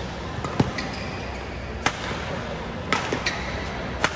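Badminton rally: rackets striking the shuttlecock four times, about once a second, each hit a sharp crack, with a few short squeaks in between.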